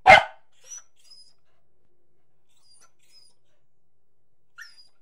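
A dog barks once, short and loud, right at the start, followed by a few faint, brief high-pitched squeaks.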